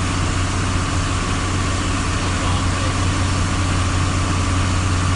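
A vehicle engine idling steadily with a constant low hum, under an even rushing noise.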